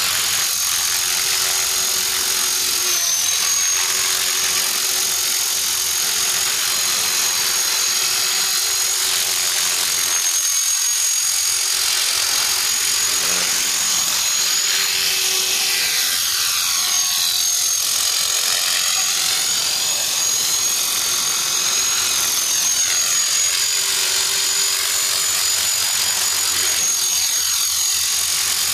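Align T-Rex 450 electric RC helicopter hovering and flying: a steady high whine from its brushless motor and gears over the rush of the rotor blades, wavering slightly in pitch and swirling in tone as the helicopter moves about.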